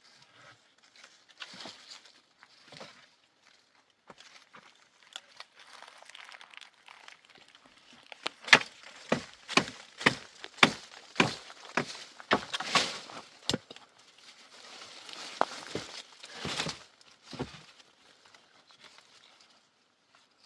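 A run of about ten sharp knocks, roughly two a second, like blows from a hand tool, followed by a few seconds of rustling and a couple more knocks.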